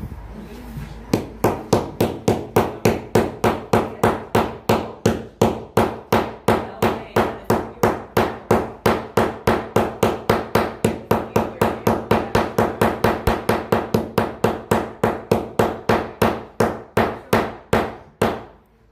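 Rapid, steady hammer blows, about four a second, driving a four-pronged metal tee nut into a wardrobe side panel. The blows stop near the end once the nut is in.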